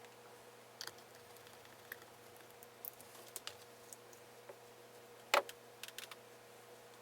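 Scattered small clicks and taps from handling a guitar and its parts during disassembly, with one louder knock about five seconds in, over a faint steady hum.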